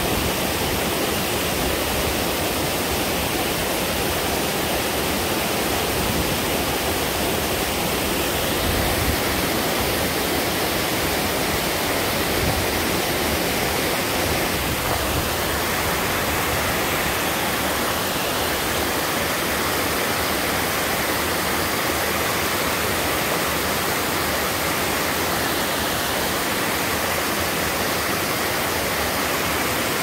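Mountain waterfall and its side cascades pouring down steep rock slabs into a rocky stream: a steady, unbroken rush of falling water.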